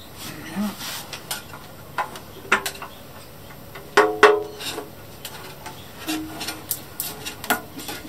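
Metal paint tins and tools knocking and clinking on a wooden workbench while primer is readied for a spray gun. About four seconds in, a sharp metallic knock rings briefly.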